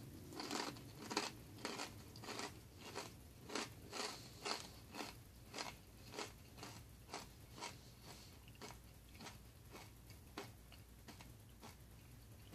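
Someone chewing a mouthful of corn nuts (toasted corn kernels), crunchy and loud, with crunch after crunch at about two a second, growing fainter toward the end.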